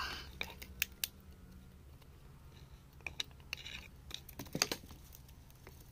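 Metal hand tools picking and scraping at wet clay and small stones: scattered light clicks and scrapes, a few sharper ticks about three and four and a half seconds in.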